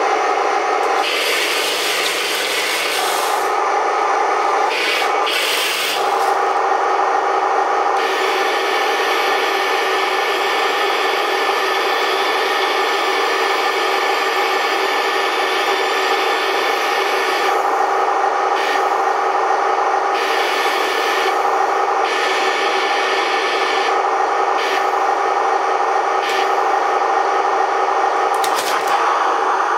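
Full-metal radio-controlled model tanks running: a steady buzzing engine sound from their sound units together with the whine of gear motors and metal tracks as the Tiger I rolls forward and turns its turret. Short bursts of hiss break in about a second in, around five seconds in and several times later on.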